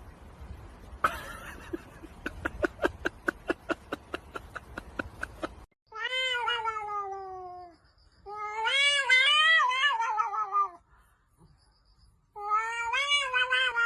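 A cat yowling in three long drawn-out calls, the first falling in pitch, the second wavering up and down. Before the calls, a rapid run of clicks at about five a second lasts several seconds.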